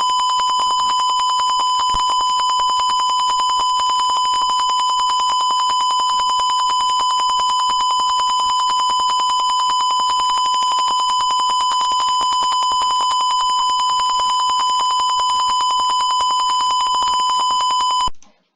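Simulated piezo buzzer sounding one continuous high-pitched tone: the fire alarm set off by the gas sensor detecting smoke. It cuts off abruptly near the end.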